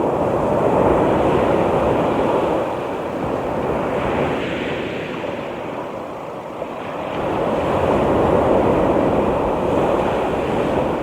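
Sea surf washing on the shore, a steady rush of water that swells twice, about a second in and again near the end, with a lull between.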